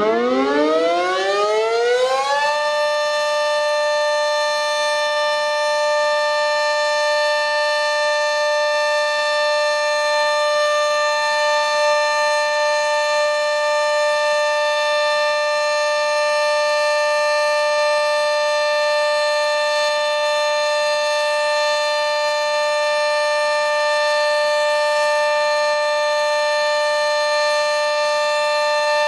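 Sentry 40V2T two-tone outdoor warning siren sounding its scheduled test signal. It finishes winding up about two and a half seconds in, then holds a loud, steady two-tone chord.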